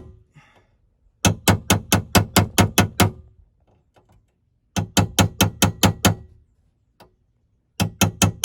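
Hammer tapping rapidly on metal in three quick runs of sharp strikes, about five a second, with a single tap between the last two runs. The blows are meant to knock a drilled-out piece out of the sunroof latch bracket.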